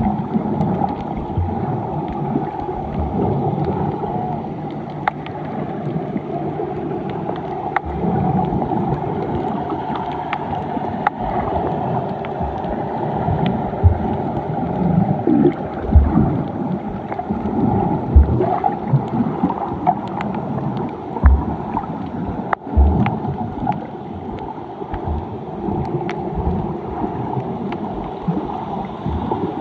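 Muffled water sloshing and gurgling, heard through a camera in the water, with irregular low knocks and clicks.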